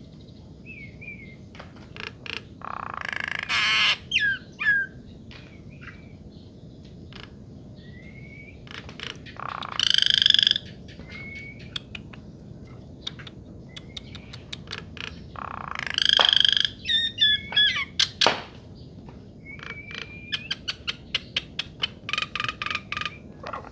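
Bird calling: short rising chirps, three loud harsh calls several seconds apart, and a fast run of clicking notes near the end, over a steady background hiss.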